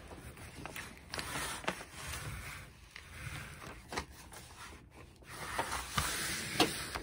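A diamond painting canvas and its release sheet rustling and crinkling as they are handled and peeled back, with a few sharp ticks.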